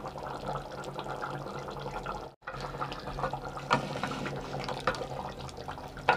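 Spicy crab and potato curry bubbling in a clay handi, a steady wet bubbling with scattered small pops and a few louder clicks. The sound drops out briefly a little over two seconds in.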